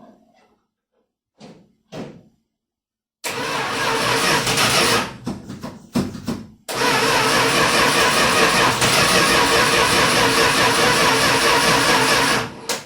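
1978 Dodge Power Wagon's starter cranking the engine: a short crank about three seconds in, a brief bump near six seconds, then a long steady crank of about six seconds that stops abruptly without the engine running on. The owner puts the hard starting down to a dying battery.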